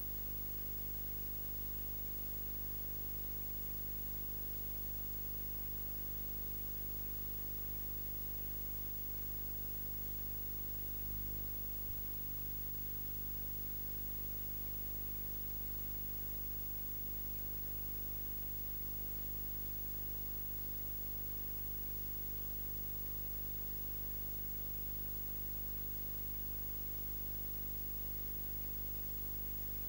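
Steady electrical hum and hiss from a camcorder recording with its microphone unplugged, with no real sound picked up, and one faint click near the middle.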